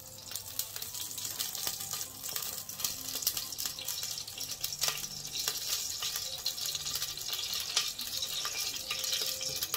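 Cooking oil poured in a thin stream into a hot aluminium pressure cooker, sizzling with a steady fine crackle as it spreads over the pan.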